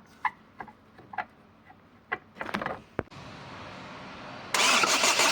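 A few light clicks and knocks, then a steady sound from about three seconds in. About four and a half seconds in, the Chevrolet Cruze 2.0 L engine comes up loud with a fast, even clatter: the engine noise the owner is showing.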